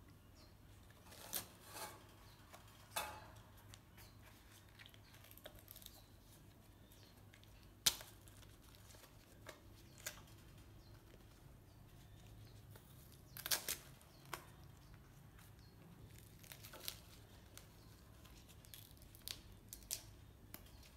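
Baby monkey tearing and biting into a green lotus seed pod: quiet, scattered tearing and crunching crackles, the sharpest a single click about eight seconds in, over a faint steady low hum.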